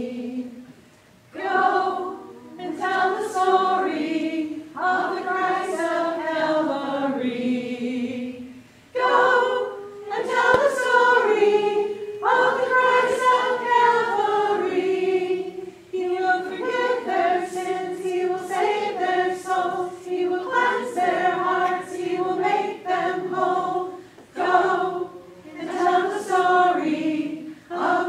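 Three women singing a children's gospel chorus unaccompanied, line by line with short breaths between phrases.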